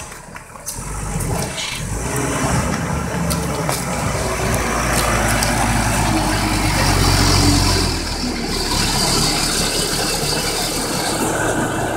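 A Tata truck's diesel engine runs close by under load as the truck creeps along a gravel track. The engine builds and is loudest just before it eases off about eight seconds in, with scattered clicks and rattles throughout.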